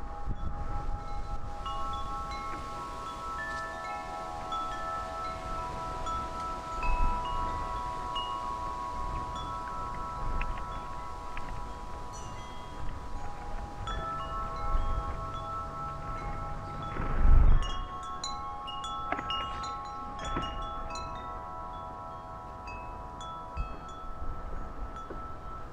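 Wind chimes ringing, several tones struck again and again and each left to ring on. Gusts of wind buffet the microphone, the strongest about two-thirds of the way through.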